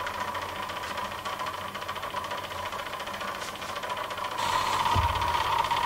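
Magnetic stirrer running, spinning a stir bar in a jar of carbon slurry: a steady hum with a fast, even ticking. It grows louder about four seconds in, and there is a low thud near five seconds.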